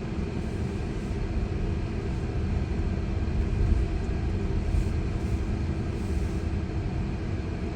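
Low, steady road and tyre rumble heard inside a Tesla's cabin as the car drives slowly, with a steady low hum running under it.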